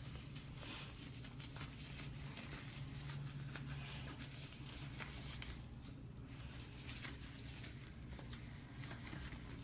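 Faint rustling and soft crinkling as sterile gloves are worked onto the hands, over a low steady hum.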